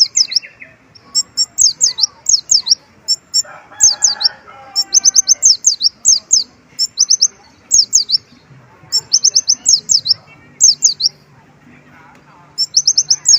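A kolibri ninja sunbird singing in quick runs of high, sharp chirps, one series after another with short pauses, its song filled with mimicked white-eye (pleci) phrases. A brief rougher, lower sound comes about four seconds in.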